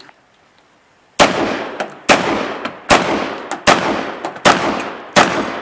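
A shotgun fired six times in a steady rapid string, about one shot every 0.8 seconds, each blast trailing off before the next.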